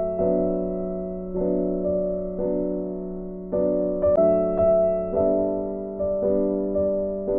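Background music: slow, gentle piano chords, each struck and left to fade, over a held low note.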